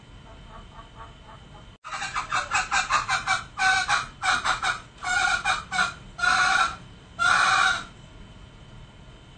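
Male green junglefowl calling. About two seconds in, a quick run of short clucks at about five a second begins. It leads into a string of longer, louder calls that stop a little before the end.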